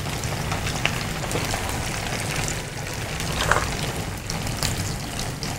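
Potato-and-semolina squares deep-frying in a pan of hot oil: a steady sizzle.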